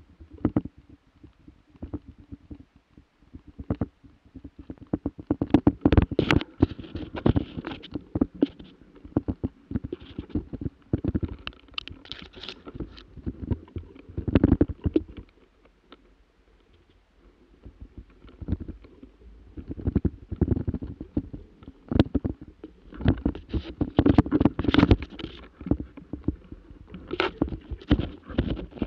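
Irregular rustling, rubbing and knocking right against the microphone of a camera carried low through brush, in clusters with a quieter gap about halfway through.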